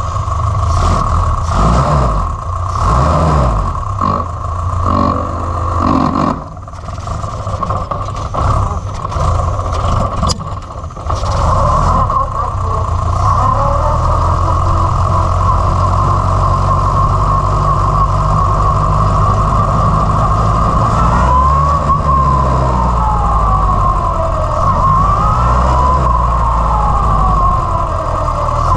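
Formula Renault single-seater's engine, heard onboard: revved unevenly in bursts as the car pulls away from a standstill, with two brief dips. It then runs at a steady speed for several seconds before revving up and dropping back repeatedly through gear changes near the end.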